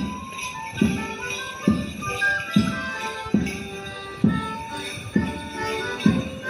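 Music with a steady beat a little faster than one a second under a pitched melody.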